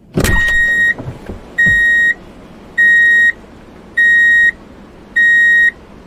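Vehicle reversing alarm: a steady high beep sounding five times, about once a second, over a low background rumble. A thump comes at the very start.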